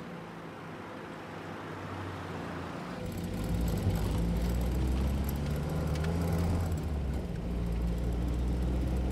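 Car engine running, heard from inside the cabin as the car drives along. About three seconds in it gets louder, with a deeper, fuller drone.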